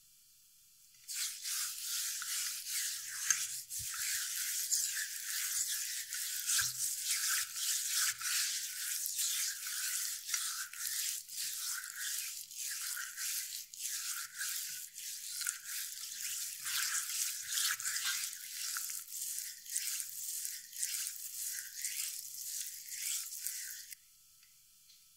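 A hand rubbing salt into the raw skin of a whole goose: a scratchy, gritty rubbing in quick, uneven strokes that starts about a second in and stops about a second before the end.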